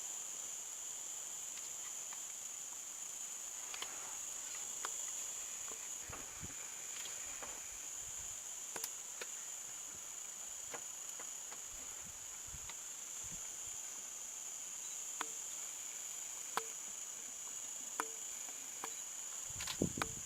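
Steady high-pitched insect chorus in the bush, with scattered faint clicks and a few louder knocks near the end.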